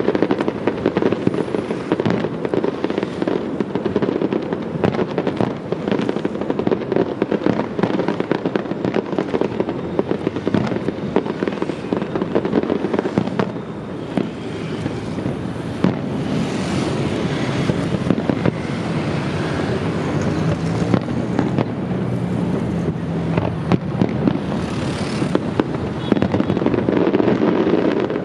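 Fireworks display going off in a dense, unbroken barrage of bangs and crackling, with stretches of higher hissing crackle twice in the second half.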